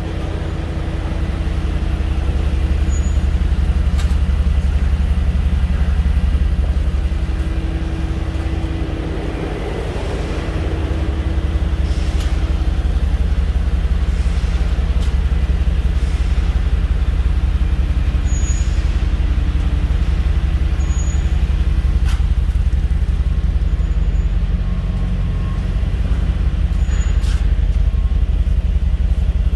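Mercedes-Benz G63 AMG's twin-turbo V8 running steadily as the vehicle rolls at slow speed, with a brake whistle each time the brakes are applied, heard as short high tones several times.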